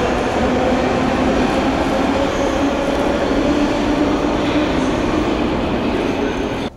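Samara metro train running with a loud, steady rumble and an electric motor whine. The sound cuts off suddenly near the end.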